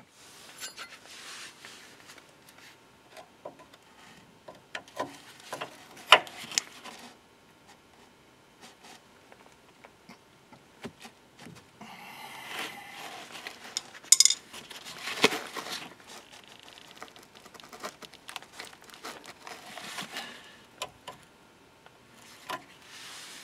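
Metal clinks and scraping from a spanner and key being worked on the corroded nut of a car's front anti-roll bar link, a nut that resists turning.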